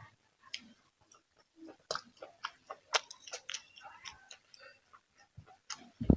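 A person chewing and crunching food close to the microphone, with irregular wet mouth clicks and smacks. A louder, dull thump comes near the end.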